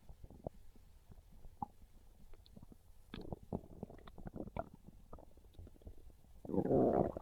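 Human stomach gurgling and growling from hunger. Small scattered pops and gurgles come first, a busier run of gurgles comes around the middle, and one louder, longer growl of under a second comes near the end.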